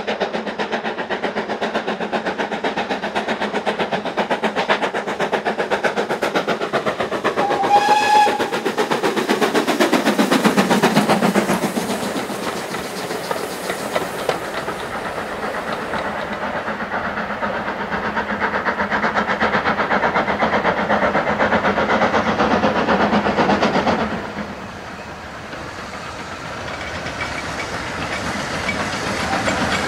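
BR Standard Class 4 2-6-4 tank engine No. 80002 working hard with a passenger train, its exhaust beats quick and steady, gives a short whistle about eight seconds in; its sound falls in pitch as it passes, and the coaches roll by with a clickety-clack over the rail joints. After a sudden drop in level near the end, Midland 4F 0-6-0 No. 43924 is heard approaching, growing louder.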